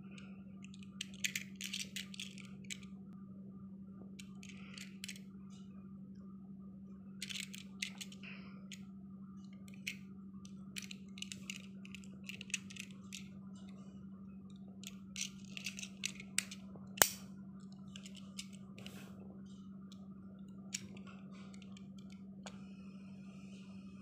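Faint clicks and small tapping of a die-cast toy car being handled in the fingers, its opening rear hatch moved, in scattered clusters with one sharp click about 17 seconds in. A steady low hum lies under it.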